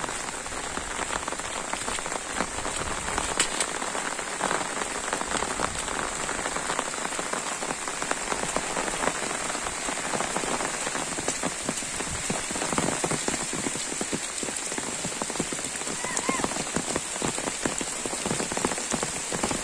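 Heavy rain falling steadily, a continuous hiss with a dense patter of drops.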